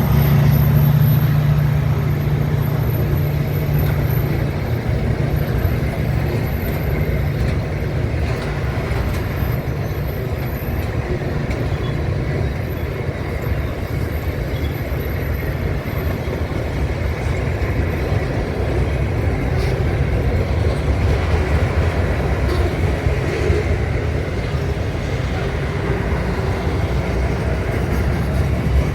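A train running on the rails: steady, loud low-pitched noise that lasts throughout.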